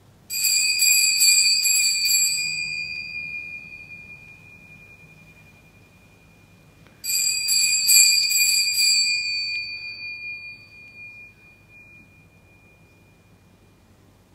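Altar bells rung twice, each time a quick jangle of several strikes for about two seconds that then rings on and fades, the second about seven seconds in. They mark the elevation of the consecrated host at Mass.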